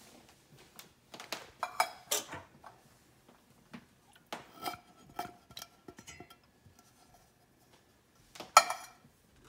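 Metal soup cans clinking and knocking against the rim of a stainless-steel pot as condensed tomato soup is tipped out. Several bunches of ringing metallic taps, the loudest near the end.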